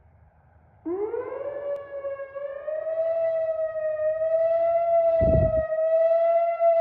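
Whelen WPS-2801 electronic siren set off on its analog 864 fast-wail tone. It starts about a second in, winds up in pitch over about a second, then holds a high, slightly wavering tone. A brief low thump comes about five seconds in.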